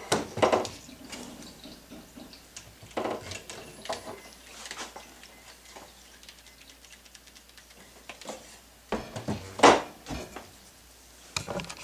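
Irregular knocks and clunks as a cordless drill and wooden chair parts are handled and set down on a workbench. The loudest knocks come just after the start, about three seconds in, and in a cluster around nine to ten seconds in.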